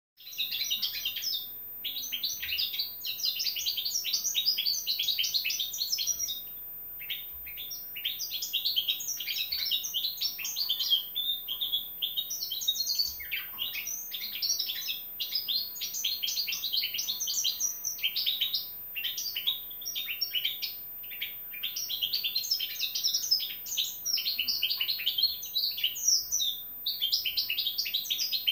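A four-month-old hybrid finch (a 'bastard' or mule) singing: long runs of rapid, high-pitched chirps and trills, broken by brief pauses every several seconds.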